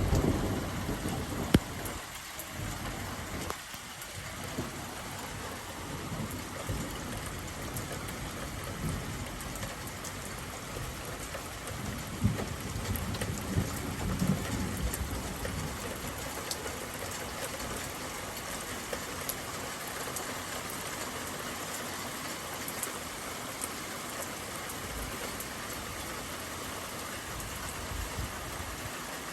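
Steady rain falling during a minor storm, with low rumbles near the start and again around the middle, and a sharp tick about a second and a half in.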